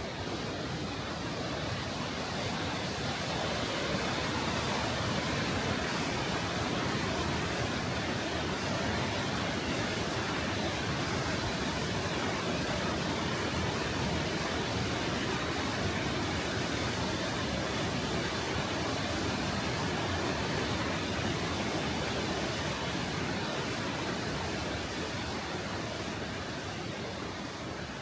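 Kegon Falls, a tall waterfall, rushing steadily as an even wash of noise that swells a little over the first few seconds and then holds.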